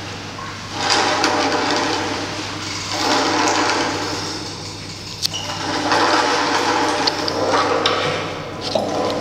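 Rushing, water-like noise that swells and fades in waves about every two to three seconds, over a steady low hum, with a few short clicks.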